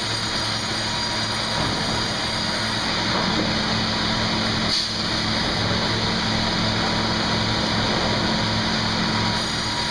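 Sawmill machinery running with a steady, dense mechanical noise and a low hum, with one brief click about halfway through.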